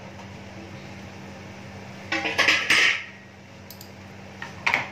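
Stainless steel lid lifted off a steel kadhai with a loud metallic clatter and ring about two seconds in, then a shorter metal clink near the end.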